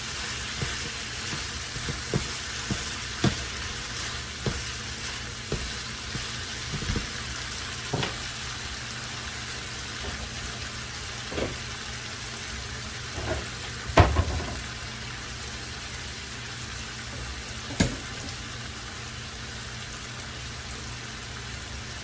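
Vegetables frying in olive oil and soy sauce with a steady sizzle. A utensil stirring them knocks against the pan now and then, most often in the first half, with the loudest knock about two-thirds of the way through.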